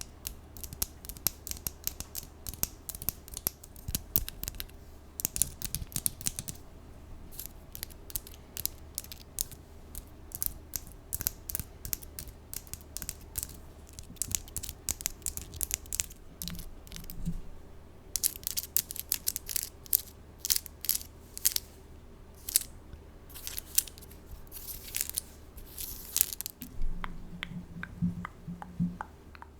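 Long acrylic 3D nails tapping and scratching close to a bare microphone: quick, irregular clicks mixed with short raspy scratches, with brief pauses in the flurry.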